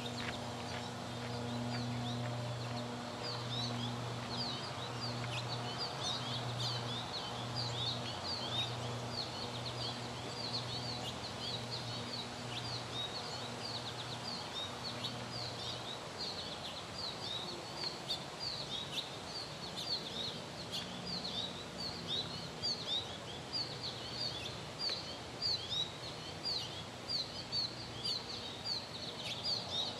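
Small birds chirping: many short, quick chirps overlapping throughout, growing more regular and prominent in the second half. A low pulsing hum sounds under them and fades out about halfway.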